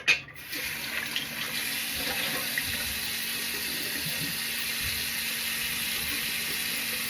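Tap running steadily into a sink, starting with a short knock.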